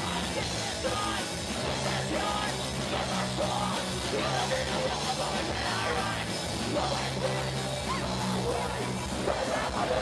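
Punk rock band playing live: electric guitar, bass and drum kit, with a singer yelling the vocals into a microphone.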